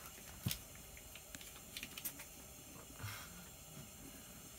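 Faint, scattered clicks and light ticks at irregular intervals over a low steady hiss, a sharper click about half a second in.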